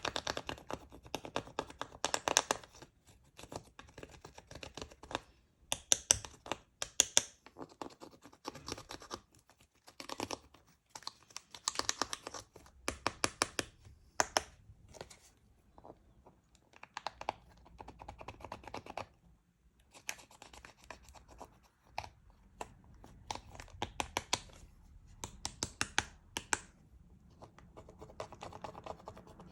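Slime being squeezed and kneaded by hand, giving clusters of sharp clicks and crackles, with short pauses between handfuls.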